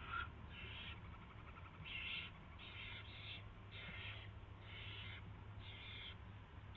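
Barn owl owlet food-begging with a run of short, rasping snore-like hisses, roughly one a second, as a rat is delivered to it in the nest box.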